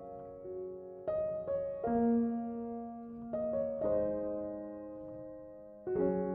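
Slow, soft piano music: notes and chords struck a second or two apart, each left to ring and fade.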